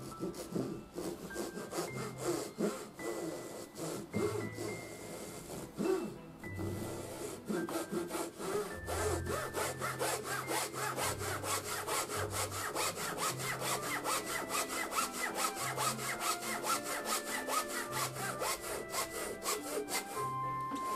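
Japanese hand saw cutting a notch into a thin wooden kumiko strip. The strokes are uneven at first, then settle into a fast, steady rhythm and stop near the end.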